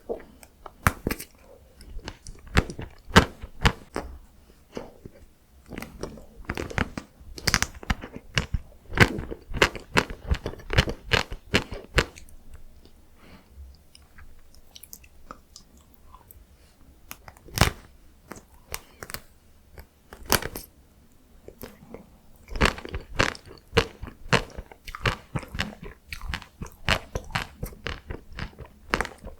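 Close-miked eating of chocolate-coated matcha ice cream: crisp crunching bites and chewing, in dense runs of crackles with a couple of quieter pauses.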